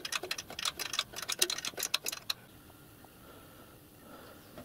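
Quick, irregular small clicks and taps of metal as a hand works at a union nut on the locomotive's small-bore pipework, stopping a little over two seconds in.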